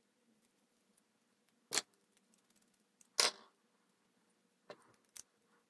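A few sharp clicks and knocks from handling a small timer relay circuit board and its wires over a plastic container. Two louder knocks come a little under two seconds in and just past three seconds, with fainter ticks near the end.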